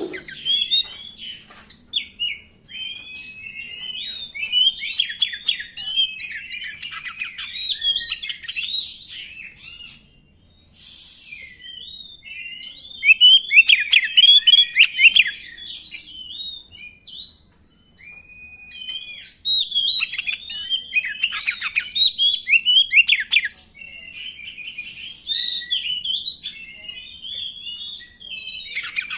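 Black-breasted Oriental magpie-robin (kacer) singing a long, varied song of clear whistles, rapid chirps and trills, with short pauses about ten and eighteen seconds in and a brief harsh hissing note just after the first pause.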